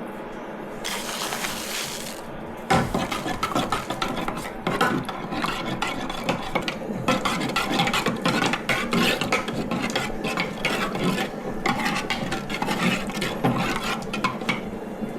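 Kitchen dishes and utensils clattering and knocking together in quick, irregular strikes, starting about three seconds in.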